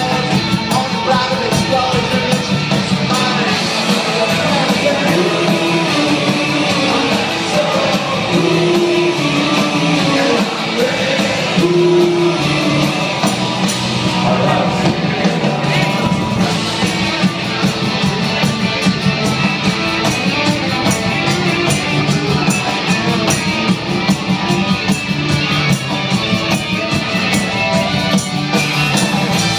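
Rock band playing live: electric guitars and drums, with a voice singing.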